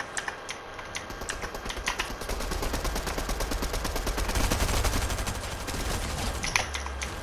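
Video game automatic gunfire: a rapid, continuous stream of shots, loudest a little past the middle.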